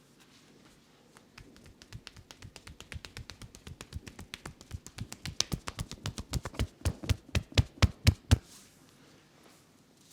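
Rapid rhythmic hand slaps of a massage (tapotement), starting about a second in, growing louder and stopping suddenly near the end.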